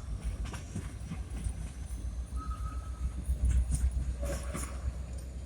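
Norfolk Southern freight train rolling past, a steady low rumble with repeated clacking knocks of wheels over the rail joints.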